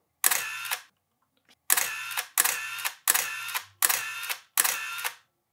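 Canon T90 SLR firing its shutter six times, each a sharp click followed by a short whir of the built-in film-advance motor: once, then after a pause five times in quick succession. The shutter is releasing again with a magnetized screwdriver held against the shutter's metal piece, the fix for the T90's EEE and blinking-cursor error.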